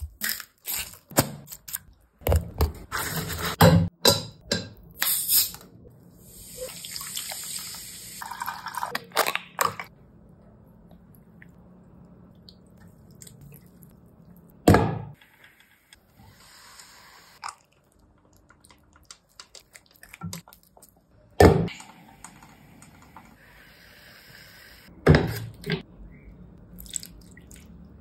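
Close-miked kitchen sounds in quick succession: taps and handling noises, liquid sauce pouring and dripping, and a hiss for a few seconds early on. A few sharp knocks stand out later.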